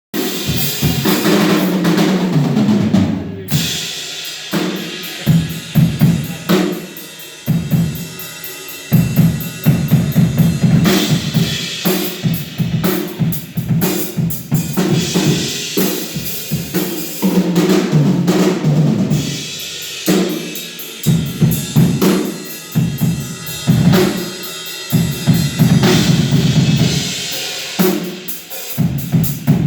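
Drum kit played continuously: bass drum, snare and cymbals in a busy pattern, with a short break about three and a half seconds in.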